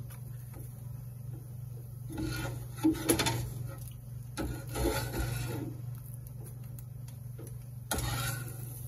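Kitchen utensil and plastic plate being handled: rubbing and scraping noises in a few stretches, with a couple of sharp clatters about three seconds in, over a steady low hum.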